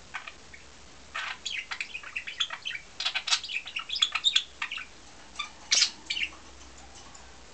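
Pet budgerigars chattering: quick runs of short, high chirps that die away about six seconds in.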